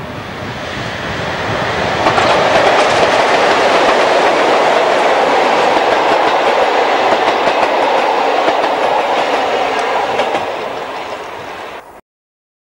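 ÖBB passenger train hauled by two electric locomotives passing close by, its wheels rumbling and clicking on the rails. The sound grows louder over the first two seconds and holds steady while the coaches pass. It eases off slightly, then cuts off suddenly near the end.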